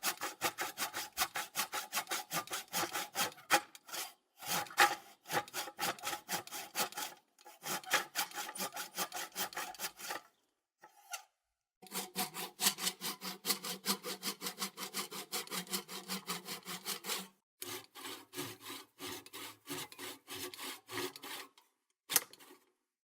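Handsaw cutting wood in runs of quick back-and-forth strokes, stopping briefly several times, with a longer pause about ten seconds in.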